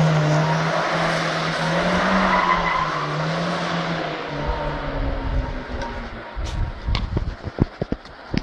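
Old sedan's engine revving hard with tyre squeal as the car pulls away and drives off, its note rising and falling and fading over the first four seconds. After that, low rumbles and a few sharp knocks on the microphone.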